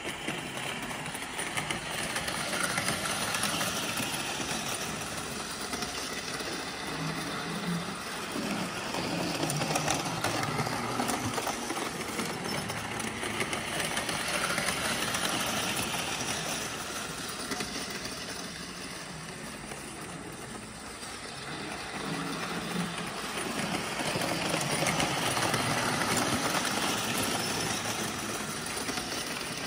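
Toy electric trains running laps on metal sectional track: a steady rumble and clatter of metal wheels on the rails with the whir of the locomotive motors, swelling louder several times as the trains come round near the microphone and fading as they go to the far side of the loop.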